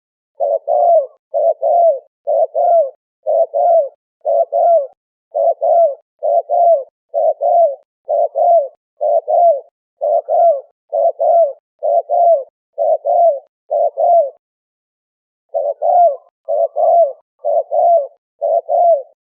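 Dove cooing: the same call repeated over and over, paired coos about once a second, with a short break about three quarters of the way through.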